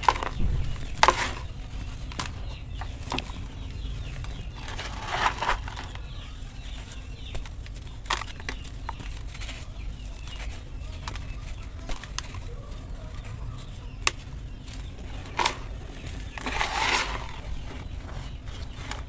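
Hands crumbling and sifting dry, gritty dirt and sand-cement: scattered crunches and sharp clicks of small lumps breaking, with rustling of dry dirt falling through the fingers. A longer crunchy burst comes near the end.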